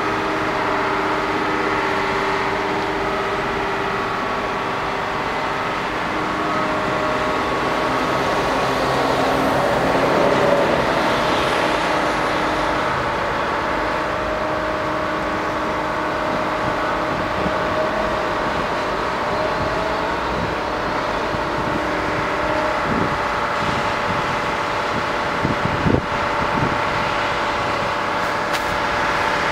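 Heavy diesel construction machinery, a crawler crane working a diaphragm wall grab with a wheel loader close by, running with a steady engine drone. A brief swell of rushing noise comes about ten seconds in, and a few sharp metal knocks near the end.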